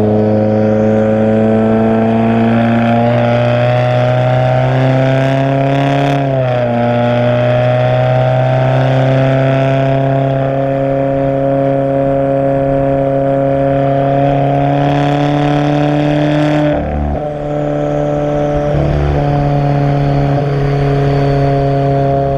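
Straight-piped exhaust of a 2017 Subaru Forester XT's turbocharged 2.0 L flat-four (FA20DIT), catless downpipe and 3-inch race exhaust, droning loudly under steady driving with its pitch slowly climbing. It dips briefly in pitch about six seconds in and falters for a moment about three-quarters of the way through, like a gear change or lift off the throttle.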